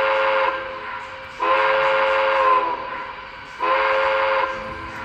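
The electronic steam whistle of a K-Line O-scale 4-6-6T tank engine sounding through its onboard speaker, a chord of several steady tones: one blast cuts off about half a second in, then a longer blast of over a second, then a shorter one near the end.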